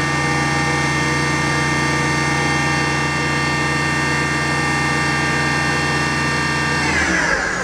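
The spindle of a 1998 Hardinge VMC-1000 CNC vertical machining center running free at 8,000 RPM, a steady whine of several held tones. Near the end it begins to wind down, falling in pitch.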